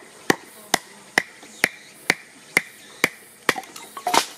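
A knife is batoned through a wooden board: a wooden block knocks on the blade's spine at an even pace of about two strikes a second, driving it down to split kindling. About four seconds in, the board splits apart with a longer, louder crack.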